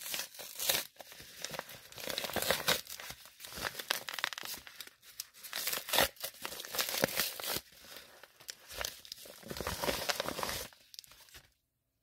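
Yellow padded bubble mailer being ripped open by hand: a run of paper tears and crinkling from the padded envelope as it is pulled apart and handled, cutting off abruptly near the end.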